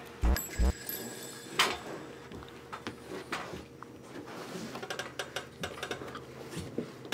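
Faint rustling and small knocks of someone crawling across a carpeted floor, with one sharper knock about a second and a half in, over a faint steady room hum.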